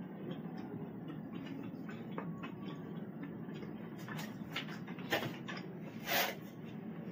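Eating by hand: fingers working rice on a plate and chewing, with a few soft clicks and a short rustling burst about six seconds in, over a steady low hum.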